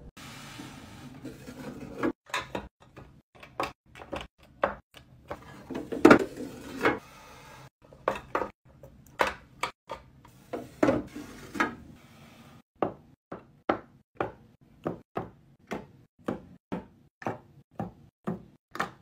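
Plastic lip-product tubes and small jars clicking and tapping as they are set one by one into clear acrylic organiser trays and drawers. Irregular taps at first with one louder knock about six seconds in, then an even run of taps, about one and a half to two a second, in the second half.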